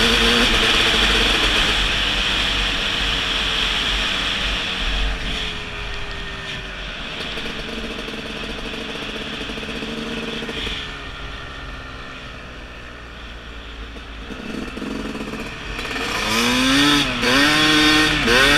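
Two-stroke dirt bike engine heard from the bike while riding: it runs under throttle at first, eases off with its pitch sliding down through the middle, then is revved up and down several times in quick succession near the end.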